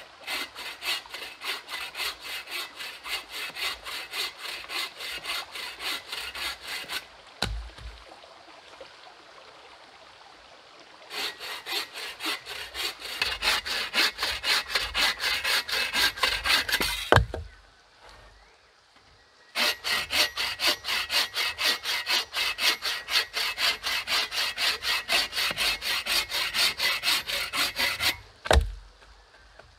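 Hand bow saw cutting through a dry deadwood log in three spells of steady back-and-forth rasping strokes, about three a second. A single low thump follows each spell.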